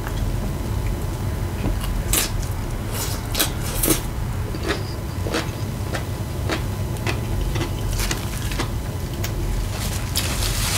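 Close-miked chewing of a mouthful of taco salad: a run of crisp crunches and wet mouth clicks. Near the end, a paper napkin is unfolded with a rustle. A steady low hum runs underneath.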